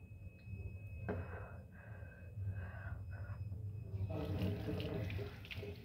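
A person hawking and gagging during deep tongue scraping: a few short throaty bursts. From about four seconds in, a water tap starts running.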